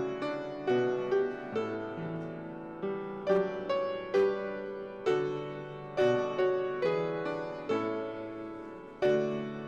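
Slow, gentle piano music: single notes and chords struck every half second or so and left to fade.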